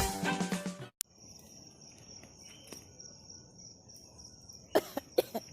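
A cricket trilling steadily on one high pitch over quiet outdoor background. The last notes of music fade out and cut off about a second in, and a few short, sudden sounds come near the end.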